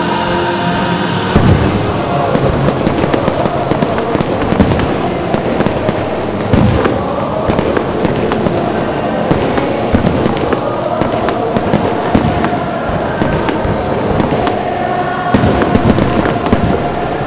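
Aerial fireworks display: shells bursting one after another with crackling, the sharpest bangs about a second and a half in, near the middle, and in a dense volley near the end.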